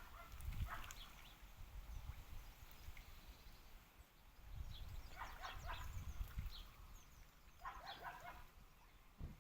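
Dogs barking in several short bursts: once about half a second in, then a run of barks between five and six seconds, and again near eight seconds.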